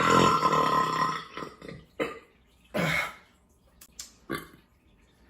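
A man's long, loud burp lasting about a second and a half, followed by three short, quieter sounds.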